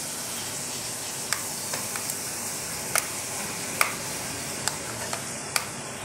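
About eight sharp, scattered clicks over a steady hiss: an African grey parrot's beak and claws on the metal wires of its cage as it climbs and plays.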